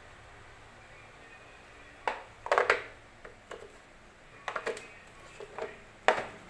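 Short hollow plastic knocks and clicks in small clusters, starting about two seconds in, as the plastic tube and parts of a stick floor cleaner are handled and fitted together.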